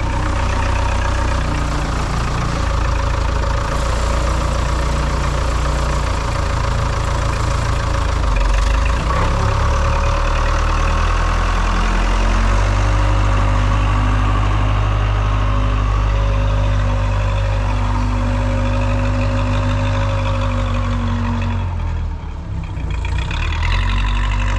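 An engine running steadily, with its pitch and level shifting a few times and a brief drop about 22 seconds in.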